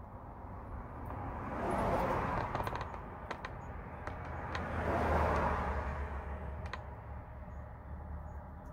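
Two vehicles passing one after the other, each a rush of tyre noise that swells and fades over a couple of seconds, with a few light clicks between them.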